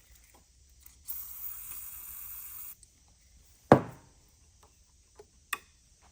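An aerosol can of starting fluid sprayed into the generator engine in one hiss of about a second and a half, followed by a sharp knock and, near the end, a lighter click.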